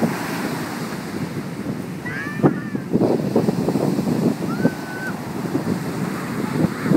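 Surf breaking and washing up the beach, with wind buffeting the microphone. Two short high-pitched cries come through, about two seconds in and again near the five-second mark.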